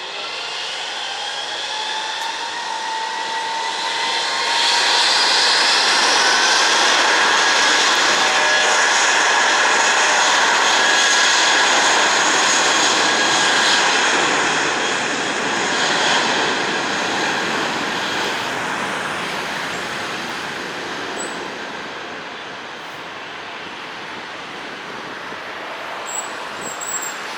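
Airbus A320 jet engines at takeoff power: a rising whine over a growing roar that peaks for several seconds as the airliner passes, then slowly fades as it climbs away.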